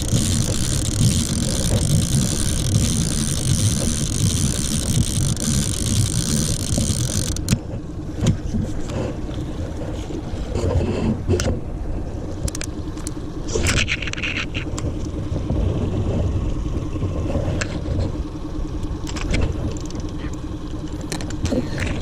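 Boat motor idling in neutral with a steady hum, under a hiss of wind and water that stops abruptly about seven seconds in; after that, scattered clicks and knocks of handling on board.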